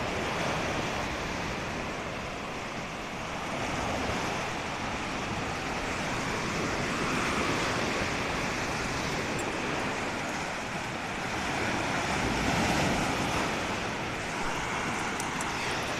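Small Lake Michigan waves breaking and washing up the beach, a steady rushing surf that swells and eases every few seconds.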